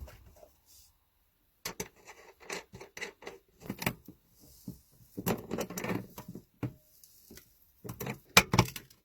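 Irregular clicks, knocks and clatter of metal hardware being handled at the inverter's cable connections and fuse holder, with a denser run of clatter in the middle and a sharp knock near the end.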